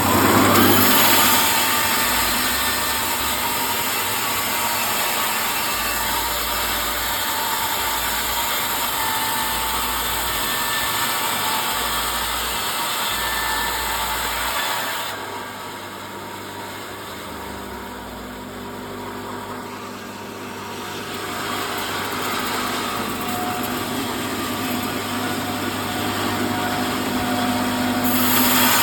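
Sawmill machinery running steadily. About halfway through it drops quieter and duller for several seconds, then picks up again.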